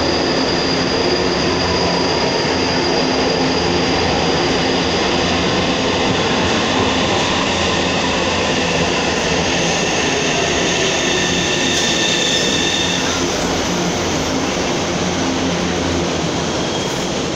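São Paulo Metro train running along an underground station platform: a steady rumble of wheels on rail with high whining tones over it, some of which stop about thirteen seconds in.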